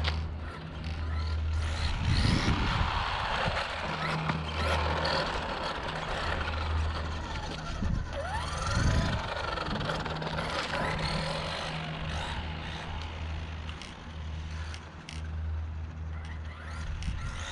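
Arrma Mojave Grom 1/18-scale RC desert truck driving fast on pavement: its electric motor whines up and down in pitch as it accelerates and slows, most clearly as it passes close about eight seconds in, with tyres running over asphalt and concrete. A patchy low hum runs underneath.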